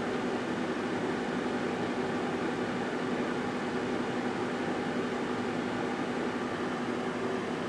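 1978 GE Dual Wave microwave oven running, a steady hum over an even fan-like whir.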